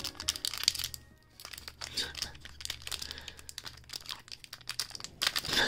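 Foil Pokémon booster pack crinkling and crackling as fingertips pinch and pull at its sealed top edge, struggling to tear it open, with louder crinkling near the end.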